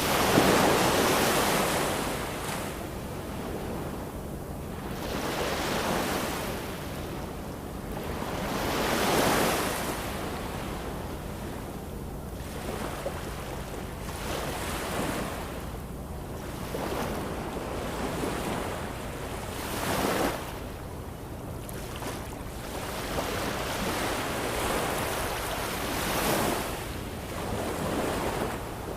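Ocean waves breaking and washing ashore in repeated surges every few seconds over a steady background wash. The loudest surge comes right at the start.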